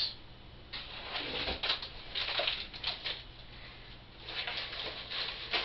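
Rustling and scraping of clothing and a cardboard box as it is handled and pulled over a head, in irregular bursts with a short lull in the middle.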